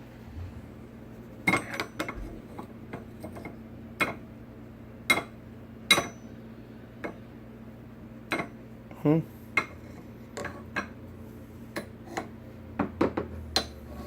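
A magnet and pieces of stainless steel scrap being handled, with irregular sharp metal clicks, taps and clinks every second or so. A steady low hum runs underneath.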